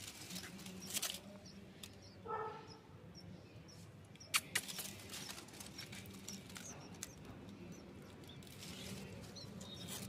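Bulbul nestlings giving faint, high squeaky begging cheeps while the dry leaves and twigs of the nest rustle and crackle under a feeding hand, with a few sharp clicks and one short pitched call a couple of seconds in.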